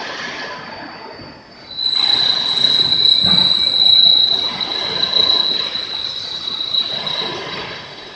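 ALPD1540 high-speed CNC plate drilling machine drilling a plate: a loud, steady high-pitched squeal of the bit cutting starts about two seconds in and eases off near the end, over steady machine noise.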